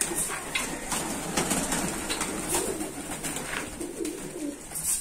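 Domestic pigeons cooing over and over in a loft, with scattered sharp clicks and rattles of grain feed being dropped into a metal feeder.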